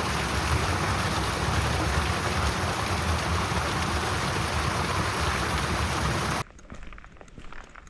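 Water rushing in a small irrigation channel: a loud, steady noise that cuts off abruptly about six seconds in. After that, a much quieter background with scattered light clicks.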